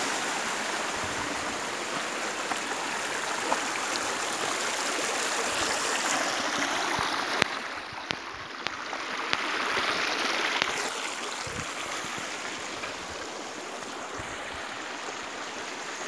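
Waterfall water running and splashing down a rock face: a steady rushing noise that eases a little about halfway through and then swells again, with a few faint clicks.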